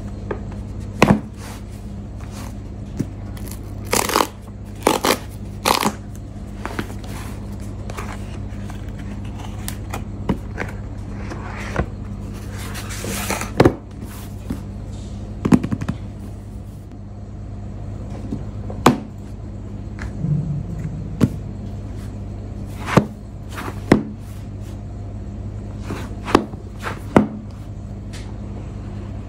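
Fingers tapping on, sliding over and handling a white cardboard product box on a desk mat, giving scattered sharp taps and a few short scraping rubs. A steady low hum sits underneath.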